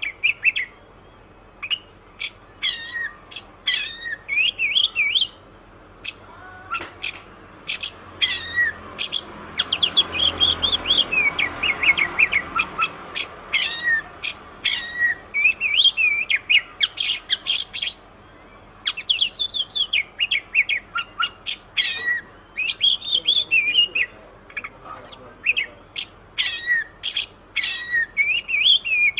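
Oriental magpie-robin (kacer) singing: rapid, varied phrases of sharp whistled and chattering notes, with brief pauses between bursts. A soft rushing noise rises under the song about a third of the way through.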